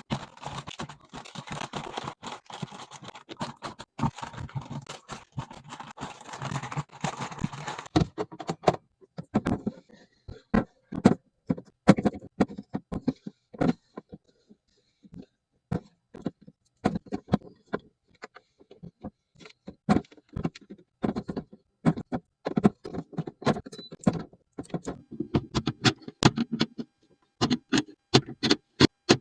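Items and containers being handled and set down while a fridge is restocked: a long run of sharp clicks, taps and knocks. A steady rustling hiss runs under them for the first eight seconds or so.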